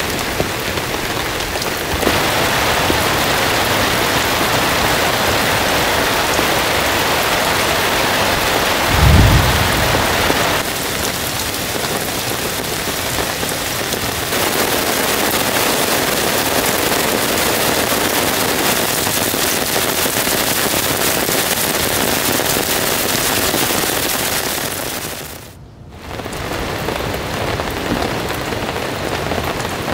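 Heavy rain falling steadily, with a short low rumble about nine seconds in. The rain briefly drops away a few seconds before the end.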